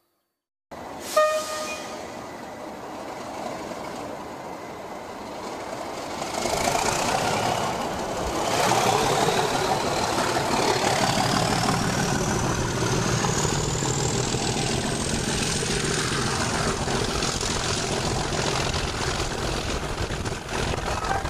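Class 37 diesel locomotive accelerating a rake of coaches away from a station, heard from an open carriage window: the engine noise builds and a whine climbs steadily in pitch as power comes on. A short sharp tone sounds about a second in.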